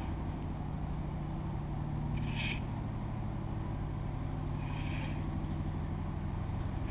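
Steady low drone of an approaching car ferry's engines, with a short high-pitched call that comes back about every two and a half seconds.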